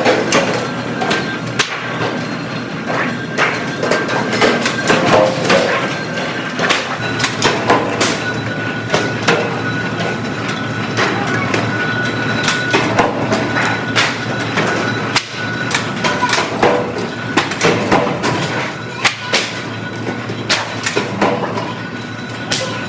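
Factory workshop noise: irregular metallic knocks and clanks over a steady machine hum.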